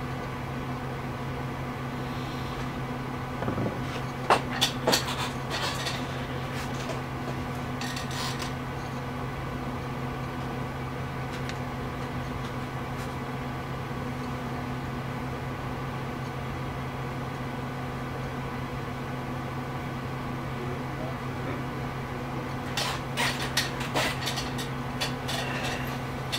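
A steady low hum, with a few short clicks and knocks about four seconds in, around eight seconds, and again near the end.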